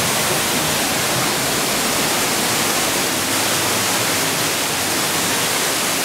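Man-made waterfall on a log flume ride, pouring off rockwork into the flume water in a steady rush of falling, splashing water.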